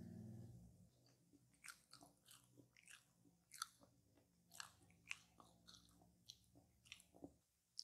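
Close-miked chewing of a bite of coconut tart: irregular wet mouth clicks and smacks, a dozen or more spread over several seconds. A low hum fades out in the first second.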